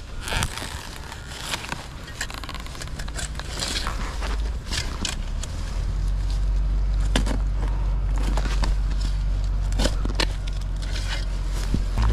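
Spade digging in garden soil and roots, with repeated crunching and scraping strokes, over a steady low rumble that gets louder about halfway through.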